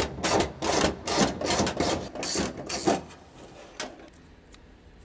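Ratchet wrench worked in quick back-and-forth strokes, a few clicking rasps a second, undoing the mounting of a flight-control cable pulley inside an aircraft fuselage. The ratcheting stops about three seconds in, leaving only a few faint clicks.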